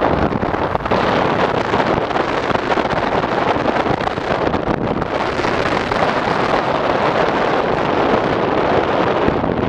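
Steady wind buffeting the microphone of a bike moving along a road, a loud even rush with road and vehicle noise mixed underneath.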